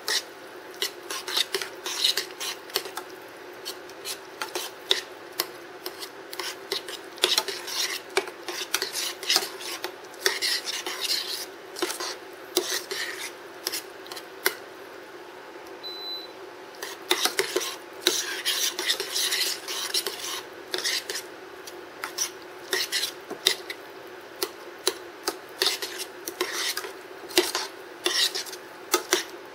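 A metal spoon stirring and scraping mashed cauliflower in a stainless steel saucepan: irregular clinks and scrapes of metal on metal, pausing briefly about halfway, over a steady low hum.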